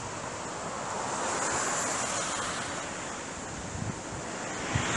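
Wind rushing through trees, swelling about a second in and easing off toward the end.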